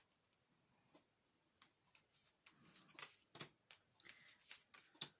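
Faint handling of tarot cards on a table: scattered soft clicks and short paper swishes as cards are moved and laid down.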